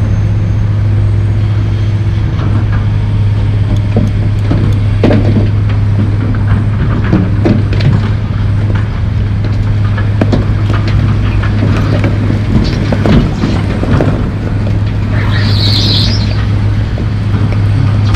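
John Deere 300D articulated dump truck's diesel engine running steadily as its hoist tips the loaded bed, with scattered knocks and clatter of concrete chunks and dirt shifting and beginning to slide out. A brief high squeal about three-quarters of the way through.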